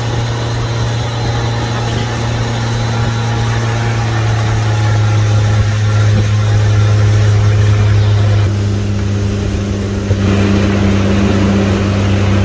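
Yamaha 115 outboard motor running steadily with the boat underway, a constant drone that steps down slightly in pitch after about eight seconds, mixed with rushing wind on the microphone.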